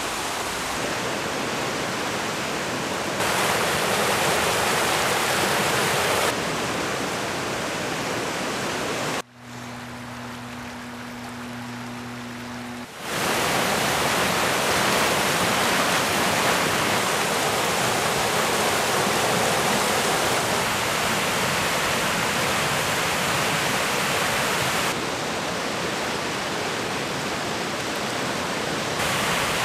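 Swollen, flooding creek rushing through rapids: a loud, steady rush of water that jumps in level now and then. About a third of the way in, a quieter stretch of a few seconds carries a steady low hum.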